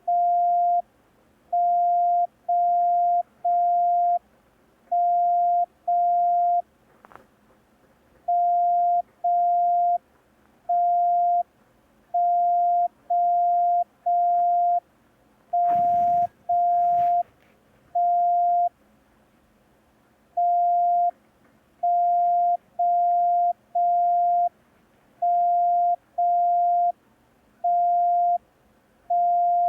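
Morse code practice tone: a single steady mid-pitched beep keyed only in long dashes, sent slowly in groups of one to three. These are the letters T, M and O of a code-receiving exercise.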